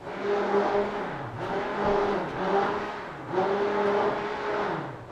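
Handheld electric whisk motor whipping coconut cream, starting suddenly and running with a steady whine whose pitch sags briefly about three times before picking back up. The motor has been running so long that it has become very hot.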